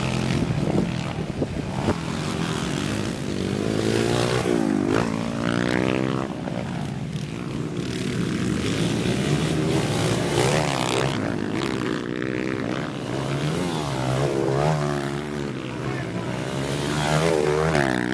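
Several motocross dirt bikes racing past, their engines revving up and down through the gears, with pitch rising and falling as each bike goes by. A steady low engine drone runs underneath.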